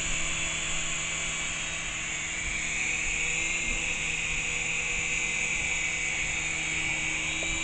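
Syma S107 coaxial toy RC helicopter hovering, its small electric motors and twin rotors giving a steady high whine. The battery is nearly flat, so the motors are running at a much higher throttle than usual just to hold the hover.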